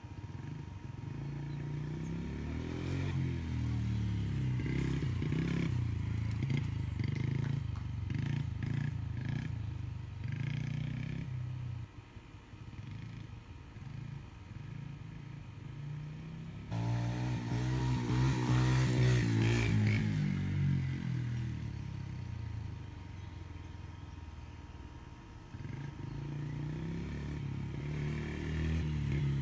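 Small child-sized dirt bike engine running as it is ridden around, its pitch rising and falling with the throttle. It turns suddenly louder a little past the middle for a few seconds, then drops back.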